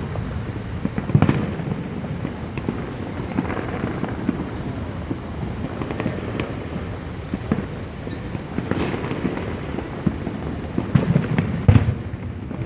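Aerial fireworks bursting in an irregular string of bangs and crackles. The loudest bursts come about a second in and again near the end.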